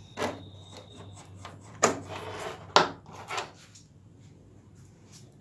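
A click as a mains plug is worked at a plastic power strip, followed by a few knocks and rubbing scrapes from handling on the work table.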